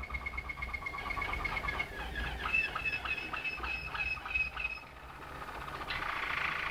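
Malinois (Waterslager) song canary singing: a fast, even trill, then a run of rapid rippling notes under a held high note. A brief lull comes about five seconds in, and a new, louder phrase starts near the end.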